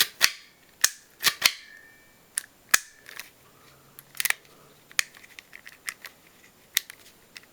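Sharp, irregular clicks and snaps from parts of a homemade paper-and-cardboard M1911 model pistol being fitted together and worked by hand, the loudest in the first second and a half.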